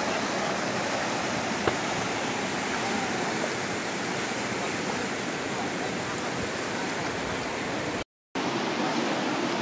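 Whitewater river rapids rushing in a steady, even wash of noise. The sound drops out for a moment near the end, then resumes slightly quieter.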